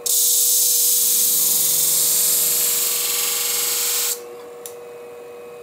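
Beauty-shear blade held in a jig against the spinning 60-micron abrasive disc of a Scimech flathone sharpening machine: a loud, steady grinding hiss that starts abruptly and cuts off about four seconds in, as the blade is lowered onto the disc and lifted off. The machine's motor hums steadily underneath throughout.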